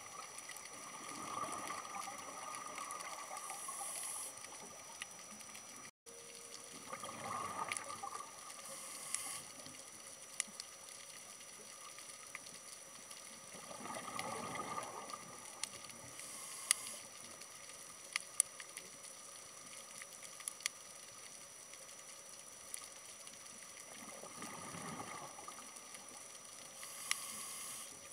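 Scuba diver's regulator breathing heard underwater: a rush of exhaled bubbles every several seconds over a steady background hiss, with scattered faint sharp clicks.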